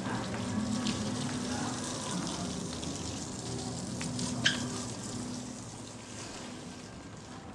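Water spraying and splashing steadily, with a faint low steady hum underneath and one short sharp click about four and a half seconds in.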